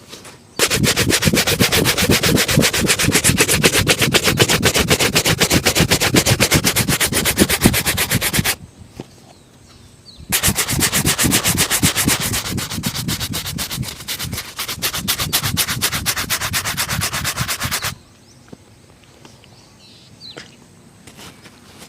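A shoe being buffed by hand with rapid back-and-forth polishing strokes, in two long spells of about eight seconds each with a short pause between them, stopping a few seconds before the end.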